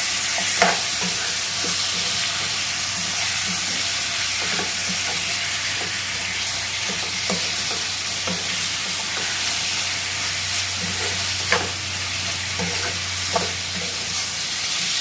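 Chicken frying in oil in a kadai, sizzling steadily while a spoon stirs it, with irregular scrapes and knocks of the spoon against the pan; a few sharper clinks stand out, one about half a second in and two near the end.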